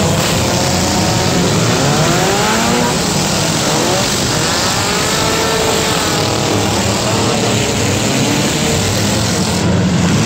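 Engines of several demolition derby cars racing on a dirt figure-8 track, many revving up and down at once, loud and continuous.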